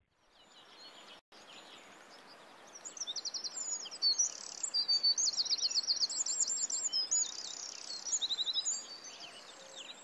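Small songbirds singing rapid high trills and chirps over a steady outdoor hiss. The song fades in at the start and is busiest through the middle.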